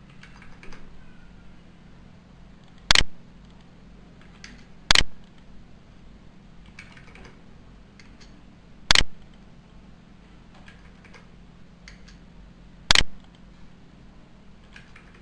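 Computer keyboard keys clicking: four sharp loud clicks spaced a few seconds apart, with lighter, fainter clicking in between, over a faint steady low hum.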